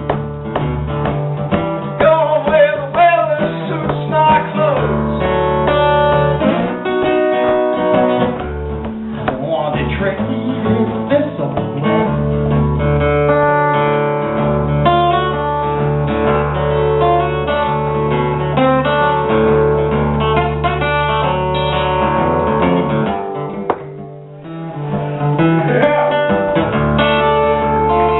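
Solo acoustic guitar played live, a picked melody over sustained low bass notes. It drops away briefly near the end, then picks up again.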